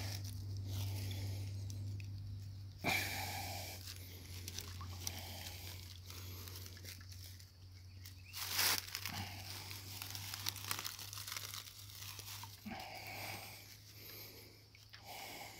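Irregular rustling and scraping noises with a couple of sharper scrapes, over a steady low hum.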